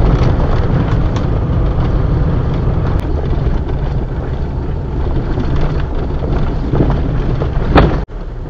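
Daihatsu Atrai kei van with a turbocharged 660cc engine driving slowly over a rough dirt track, heard from inside the cab: a steady engine and tyre rumble with a few light rattles, and a sharper jolt near the end.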